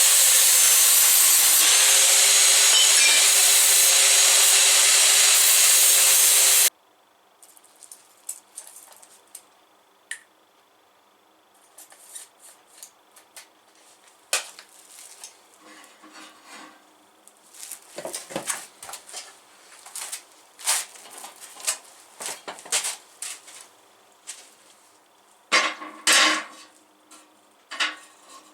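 A power tool, such as an angle grinder, cutting or grinding steel with a loud steady hiss and whine; it stops sharply about seven seconds in. Then come scattered clanks and clinks of metal pieces being handled and set down, with several louder knocks near the end.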